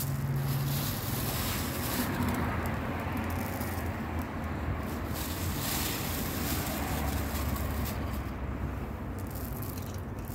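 Steady low rumble with an even hiss over it: outdoor street background noise.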